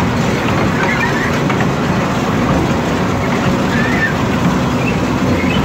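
Steady rumbling noise of a small kiddie train ride running along its track, heard from aboard a moving car.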